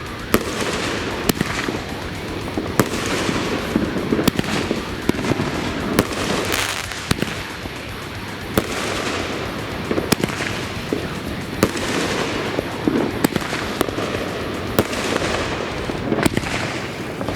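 RGS 'Boom Shakalaka' 500-gram, 16-shot consumer firework cake firing its shots one after another. There are sharp reports about every second to second and a half, over a continuous crackling hiss.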